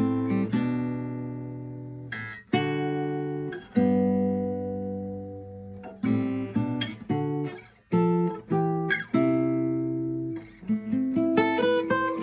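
Seagull Folk acoustic guitar being played: chords struck every second or two and left to ring out, giving way to quicker picked single notes climbing in pitch near the end.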